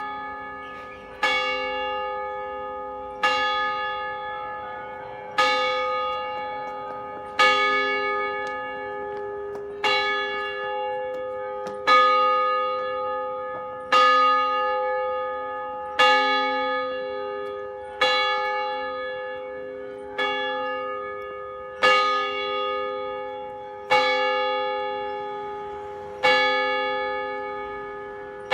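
A church bell tolling, struck about once every two seconds, each stroke ringing out with the same pitch and fading slowly until the next.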